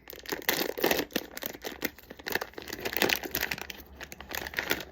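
Plastic packaging of a blind-box figure crinkling and tearing as it is unwrapped by hand, with irregular crackles throughout.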